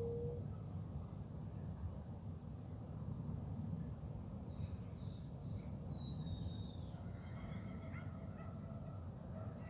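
Animal calls outdoors: thin, high held notes and one long, slowly falling whistle over a steady low rumble.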